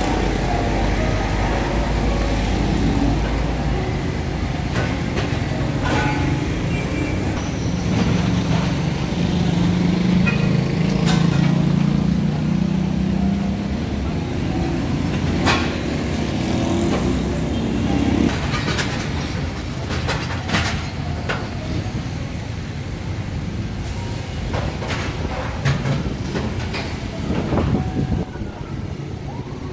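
Busy street traffic: motor vehicle engines running and passing, one louder for about ten seconds in the middle, with scattered knocks and clatter.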